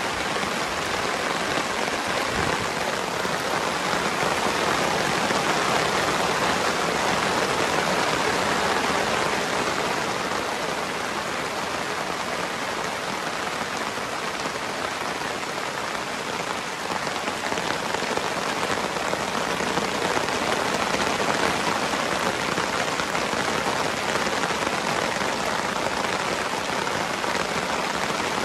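Heavy rain falling steadily: a dense, even hiss of drops on wet grass and ground.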